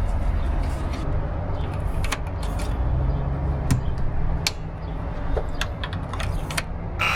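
Keys jangling and scattered sharp clicks as a hotel room door is unlocked and handled, over a steady low hum.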